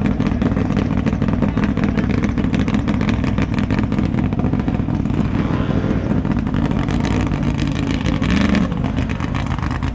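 Formula offroad buggy's V8 engine running hard without a break as the buggy climbs a steep loose-gravel slope, with a brief rise in pitch near the end.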